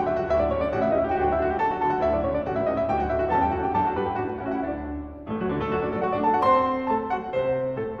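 Background music led by piano, with a short break in the notes about five seconds in.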